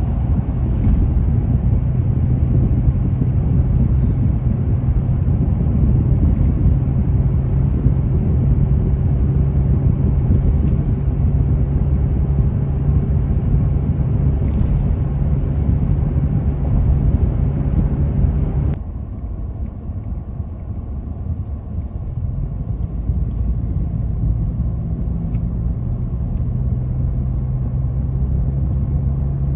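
A car driving: steady low engine and road rumble that suddenly drops to a quieter, duller rumble about two-thirds of the way through.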